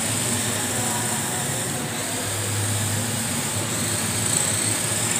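Small electric motor of a radio-controlled drift car running steadily as it drifts, a high whine over a low hum.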